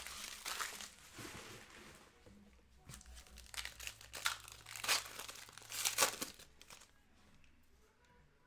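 Trading card pack wrapper being torn open and crinkled, with a rustling crackle at first and then sharp crinkles about three, five and six seconds in before it goes quiet.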